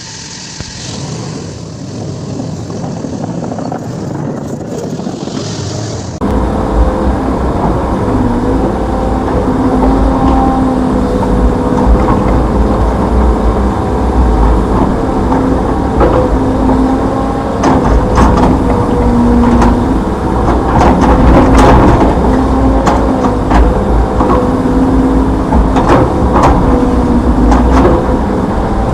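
Hitachi Zaxis 210F excavator working: its turbocharged four-cylinder diesel engine running hard under load with a steady whine. Sharp clanks come now and then. The loud machine sound starts abruptly about six seconds in.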